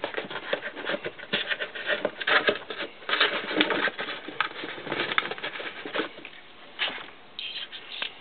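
Fingers handling small metal antenna-mount parts and a rubber seal against a cardboard box: irregular clicks, taps and rustling, busy for about six seconds, then only a few scattered clicks.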